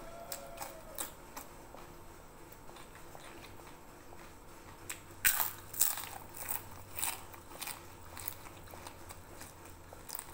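Close-up biting and chewing: a few light crisp bites of a cucumber slice at the start, then a run of loud crunches about five seconds in as a crisp fried cracker is bitten and chewed.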